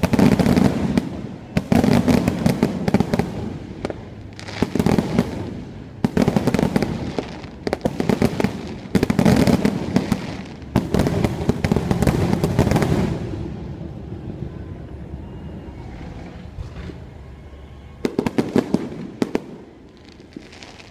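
Aerial fireworks display: shells bursting and crackling in repeated clusters a second or two apart for most of the time, thinning out, then one more short cluster near the end.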